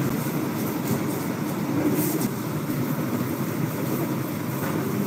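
Steady low rumbling noise with light rustling, typical of a phone or handheld camera recording while its holder walks.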